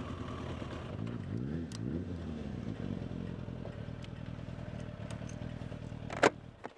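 Yamaha XJ900 Diversion's inline-four engine idling, with a brief rev up and back down about a second in. Near the end there is a sharp click, and the engine sound drops away.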